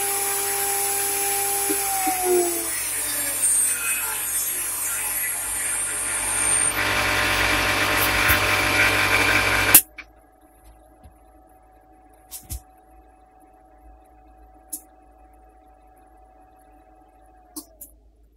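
Dust collection running with a loud, steady rush while the CNC spindle motor's whine slides down in pitch about two seconds in as the spindle winds down. The rush grows louder near seven seconds, then cuts off suddenly with a click near ten seconds, leaving a faint hum and a few light clicks.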